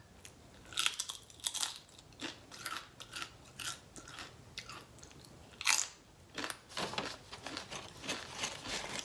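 Tortilla chips being bitten and chewed close to the microphone: a run of irregular, crisp crunches, one louder bite a little past the middle.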